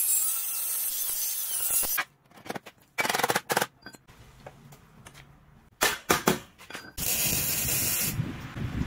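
An angle grinder cuts through a sheet-metal channel for about two seconds with a steady hiss. This is followed by a few sharp knocks and short bursts. Near the end, a stick (arc) welder crackles steadily for about a second.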